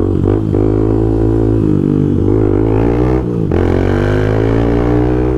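Honda CBX 250 Twister's single-cylinder four-stroke engine running under way, with its intake hose removed. The pitch dips briefly about a second and a half in, drops sharply about three seconds in, then climbs again as it picks up revs.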